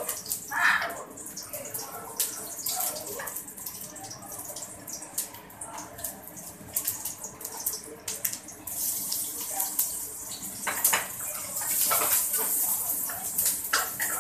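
Kitchen clatter: utensils and cookware knocking and clicking. About nine seconds in, a steady hiss starts and keeps going.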